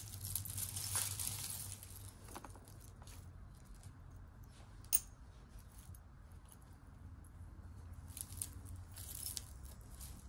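Beads, chains and cords of a tangled pile of costume jewelry being handled and pulled apart on a cloth: light clicking, jingling and rustling, busiest at the start and again near the end, with one sharper click about halfway through.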